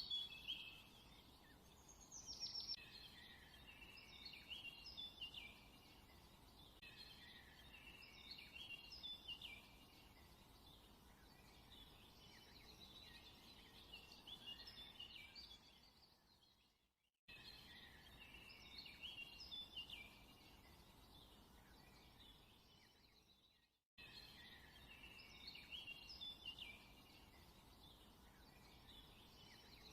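Faint songbirds chirping and trilling in a continuous chorus of short calls. The chorus is broken twice by a sudden brief silence before it resumes.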